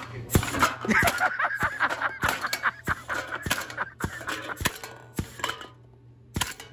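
Homemade air-powered beer can crusher cycling over and over, a rapid run of knocks and crunches, about three a second, as it smashes cans. A steady low hum runs underneath. The knocks pause near the end, then come twice more.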